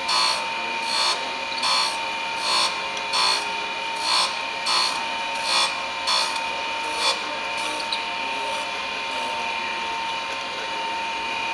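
Chevalier surface grinder's wheel hissing against the test block in short grinding bursts about every 0.8 s as the table is swept back and forth, over the steady whine of the spinning wheel. The bursts fade out about seven seconds in, leaving the wheel whine alone.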